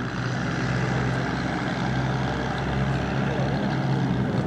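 Piston aircraft engine droning steadily, with a low even hum that swells slightly in the first second and then holds.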